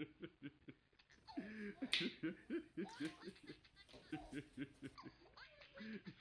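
Laughter: quick runs of short 'ha-ha' pulses, about four or five a second, breaking off and starting again, with a louder, breathier stretch near the second second.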